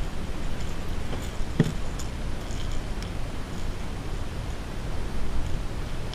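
Steady low wind rumble on the microphone, with a few light clicks and one dull knock about one and a half seconds in, from hands working a crankbait's hooks out of a largemouth bass's mouth.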